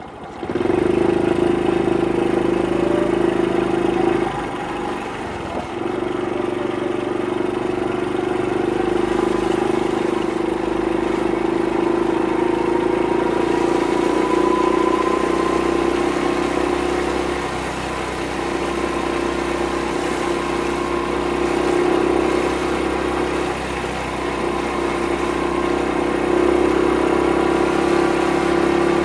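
Honda Super Cub 50 (AA01, carburetted) single-cylinder four-stroke engine and exhaust, going from idle to a steady pull as the bike sets off and rides slowly. The note dips briefly a few times, and a faint rising whine sits above it.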